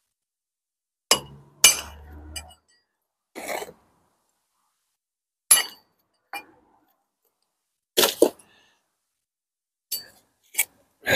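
Hard clinks and knocks of bricks and steel bricklaying tools being handled: about ten scattered sharp strikes, with a brief scrape about three and a half seconds in.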